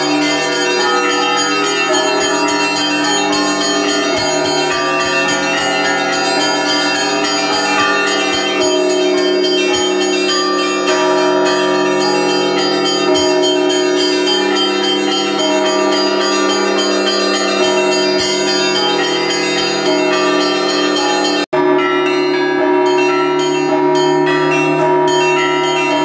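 Orthodox church bells ringing together in a continuous peal from inside the belfry. Many bronze bells of different sizes overlap into a dense, steady ringing, with the large bell worked by the ringer's foot pedal. The sound cuts out for an instant about 21 seconds in, then goes on.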